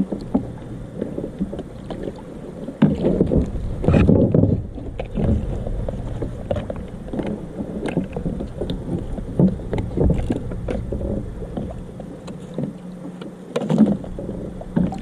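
A Jackson Big Rig plastic fishing kayak knocking and bumping irregularly as the angler works a big fish on rod and reel, over a steady low rumble, with louder thumps about three and four seconds in and again near the end.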